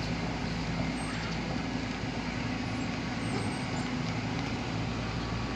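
Vehicle engine running steadily amid road traffic noise.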